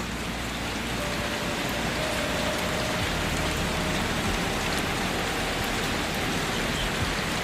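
Steady, even rainfall with dense patter, rising a little in level about a second in and then holding steady.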